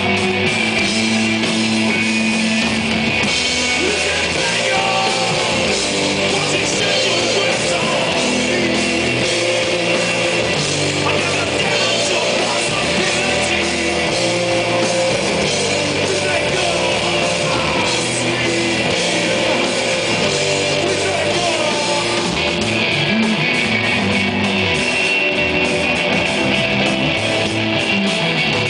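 A rock band playing live: electric guitar lines over held bass notes and drums with steady cymbal wash, loud and continuous.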